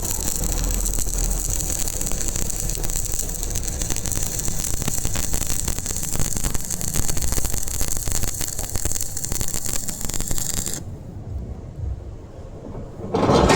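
Welding arc crackling and hissing steadily, cutting off abruptly about eleven seconds in. A brief loud noise follows near the end.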